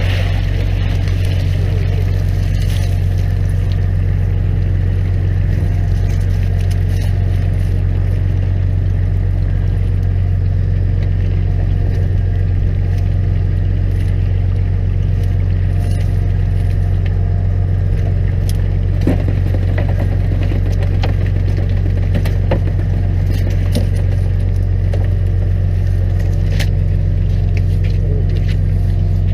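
A fishing boat's engine running at a steady low hum, with scattered knocks and rattles from wire-mesh fish traps being hauled aboard and handled.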